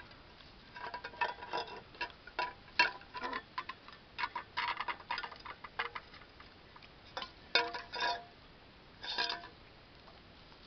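Pig chewing and smacking its mouth as it snuffles crumbs off the ground: irregular clusters of clicks and short smacks, thickest from about one to six seconds in, then a few more around eight and nine seconds.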